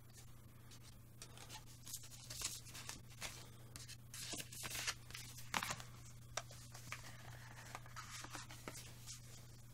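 A CD and its card wallet being handled: faint scraping and rustling of disc and card with scattered light clicks, over a steady low hum.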